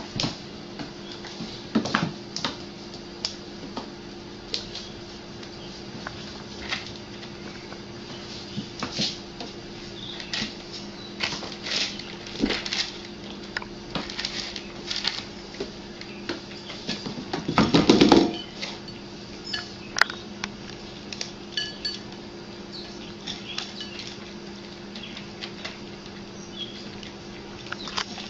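Dishes and cutlery clinking and clattering in irregular taps and knocks over a steady low hum, with one longer, louder clatter a little past the middle.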